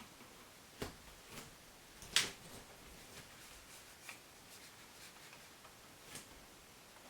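A few scattered light clicks and taps from a small handheld Bluetooth keyboard being handled and its keys pressed. The sharpest click comes about two seconds in.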